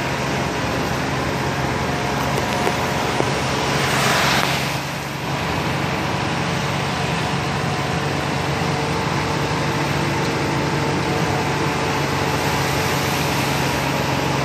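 Heavy rain pouring onto a paved road, a steady hiss of falling and splashing water, with a steady low engine hum underneath. About four seconds in the noise swells louder for a second or so, like a vehicle passing on the wet road.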